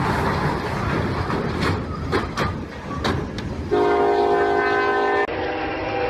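A freight diesel locomotive hitting and shoving a truck trailer across a level crossing: heavy rumbling with several sharp metal crunches and bangs, then the locomotive's air horn sounding a steady chord a little under four seconds in. After a cut, another train horn chord sounds.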